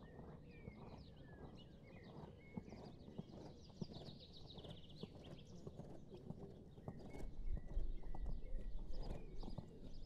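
Dressage horse's hooves beating on a sand arena surface in a trotting rhythm, with high chirps over it. A low rumble comes in about seven seconds in and lasts a couple of seconds.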